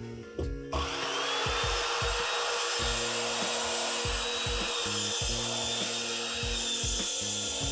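A circular-blade power saw starts about a second in and runs steadily as it cuts across a wooden shelf board, over background music with a steady beat.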